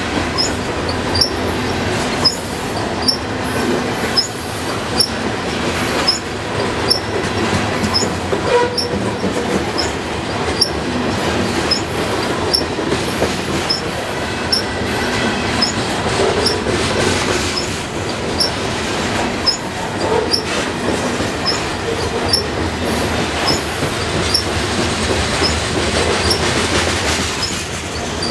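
Covered hopper cars of a grain train rolling past close by: a steady rumble of steel wheels on rail, with a sharp click about once a second as wheelsets go by.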